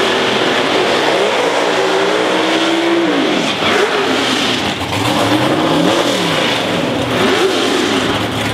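Drag race car's engine revving through a burnout. The pitch climbs and holds high for about two seconds while the rear tyres spin, then drops, and the engine is revved up and down several more times.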